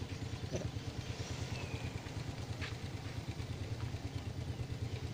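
Steady low engine hum with a fast, even pulse, like an idling motorcycle, with a faint descending chirp about a second and a half in.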